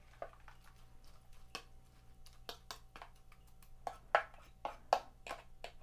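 Oats and water being stirred in a container: irregular light clicks and scrapes of the stirring utensil against the container, with a few louder knocks about four and five seconds in.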